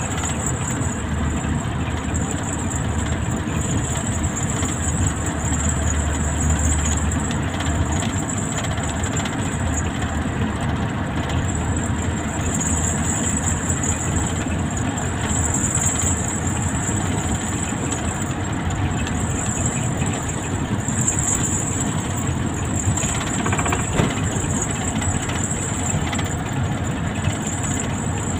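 Hino heavy vehicle's diesel engine running steadily under way, mixed with road noise, heard from inside the cab, with a steady high hiss over it.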